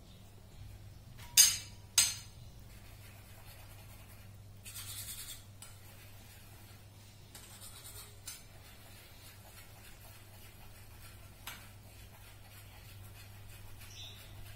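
Kitchen clatter of cookware: two sharp clinks about half a second apart near the start, then two short soft hissy rustles and a few faint ticks, over a low steady hum.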